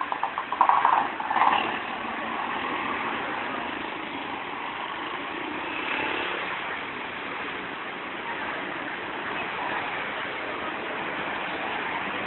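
Busy street ambience: the steady hum of passing traffic and engines mixed with crowd noise, with a short, loud run of rapid pulsing sounds about half a second in.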